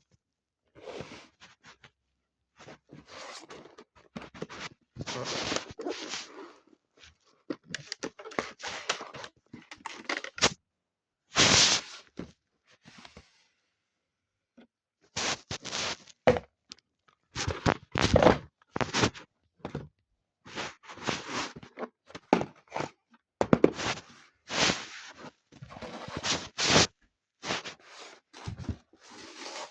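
Model train packaging being handled and opened by hand: stop-start rustling, scraping and tearing of cardboard and plastic, with occasional knocks and clicks.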